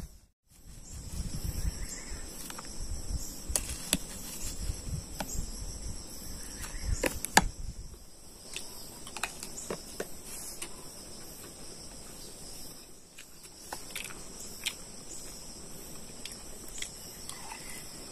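Steady chorus of insects trilling in high, unbroken bands, with scattered light clicks throughout and a low rumble during the first eight seconds or so.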